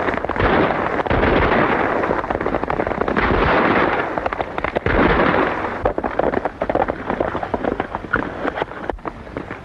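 Gunshots fired in quick succession over galloping horses, on a 1940s film soundtrack. The shooting is densest for the first six seconds or so, then thins to separate sharp cracks.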